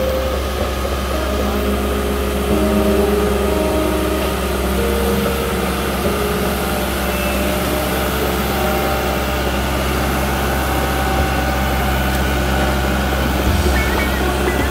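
Cat D1 crawler dozer's diesel engine running steadily as the machine pushes soil with its blade.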